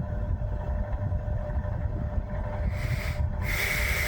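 1973 National F-30AAD table fan running with its shark-fin blades. Its airflow buffets the microphone with a steady low rumble over a faint motor hum, and it is turning a bit slow. A short hiss rises about three seconds in and again near the end.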